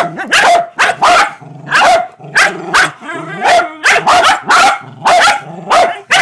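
Shetland sheepdogs play-barking at a cable that moves in the floor: sharp, repeated barks, about two a second.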